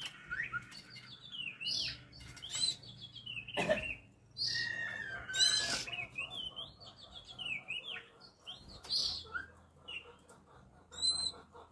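Oriental magpie-robin singing: a quick string of varied whistled and chirping phrases, with a brief soft thud a little before four seconds in. This is the kind of song kept to rouse magpie-robins into breeding mood.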